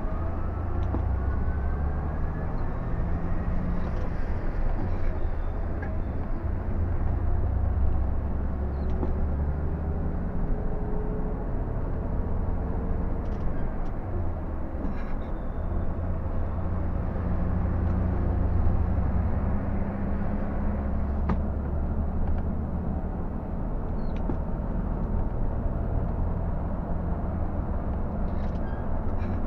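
Inside the cab of a Scania K124 360 bus: its 12-litre straight-six diesel running under way at highway speed, a steady low engine drone with tyre and road noise. A whine rises in pitch twice, in the first few seconds and again around ten seconds in, as the bus gathers speed.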